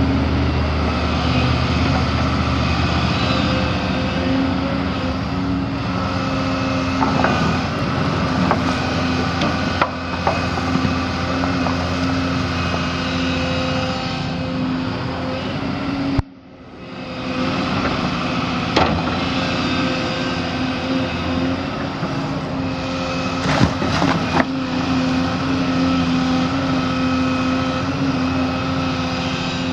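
Excavator's diesel engine running steadily under working load, with occasional knocks. The sound briefly drops out about sixteen seconds in.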